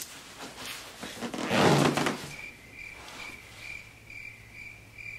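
Clothes rustling and a soft thud as a person sits down on a cushioned seat. After that, a faint high chirp repeats about three times a second over a low steady hum.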